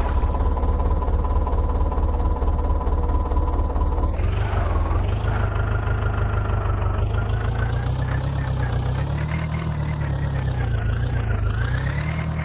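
Diesel engine running steadily near idle, then its revs pick up about four seconds in and rise and fall several times toward the end.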